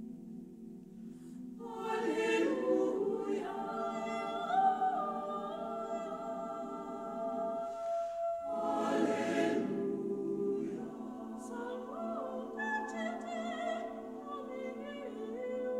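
Mixed choir singing a cappella: sustained, slowly shifting chords, with fresh louder entries about two seconds in and again just past the middle. Near the end a voice with wide vibrato sings above the chords.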